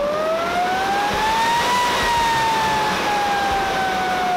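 Hosokawa Micron Pulverizer hammer-mill rotor spinning with a whine that rises to a peak about two seconds in, then slowly falls. The mill is running below its full speed because the power supply is insufficient.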